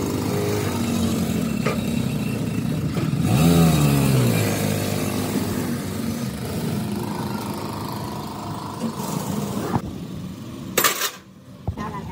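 Motorcycle cargo rickshaw's small engine running as it rides in, revving up about three and a half seconds in, then settling and fading. A couple of sharp knocks near the end.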